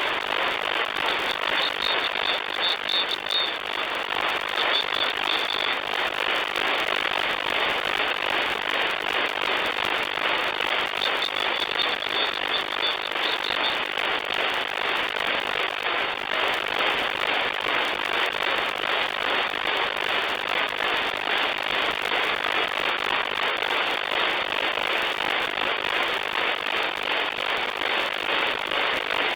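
Shortwave band static on the 40 m amateur band through an SDR receiver's sideband audio: a steady hiss with dense crackling, with faint high tones twice in the first half and no voice coming through.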